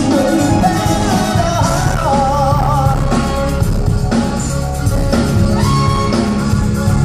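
Latin freestyle pop song playing over a PA sound system: a steady bass-heavy beat with synths and a singing voice gliding through a wordless run of notes.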